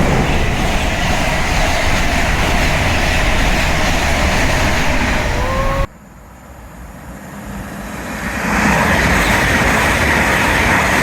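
Express passenger train passing at speed: a loud rush of wind and wheels on rail, with a brief rising tone shortly before the sound cuts off suddenly about six seconds in. The noise of another train then builds up and runs loud again as it comes through.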